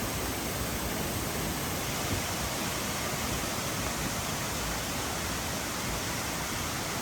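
Waterfall running at high flow after heavy rain: a steady, even rush of falling water.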